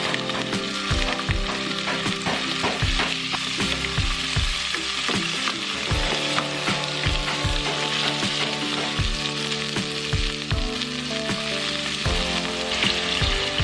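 Food sizzling as it fries in a pan, a steady hiss, with background music underneath.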